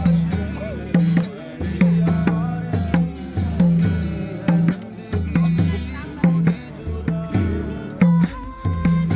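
Background music with a steady beat of deep drum strokes, about two a second, under melody lines.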